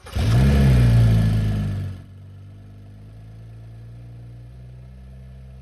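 BMW 535i's turbocharged inline-six engine run up on its post-repair start check: its pitch rises about half a second in and settles. After about two seconds the sound drops suddenly to a much quieter steady hum.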